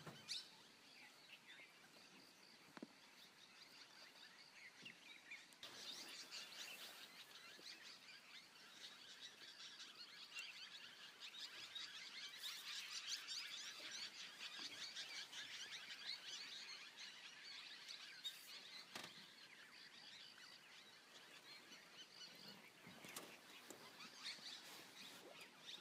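Faint forest ambience of high-pitched chirping, swelling around the middle and easing off again.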